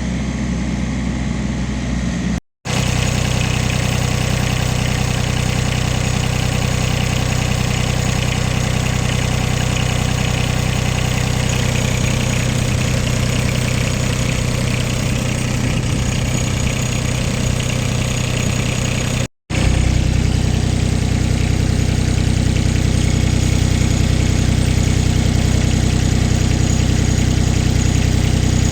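Wacker Neuson EZ28 mini excavator's diesel engine idling steadily, broken twice by a brief cut to silence.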